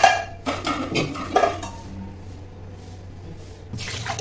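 Stainless steel pots and plates knocking and clattering against each other and the counter as they are handled: a run of clanks with ringing in the first second and a half, then a quieter stretch, and another clank near the end.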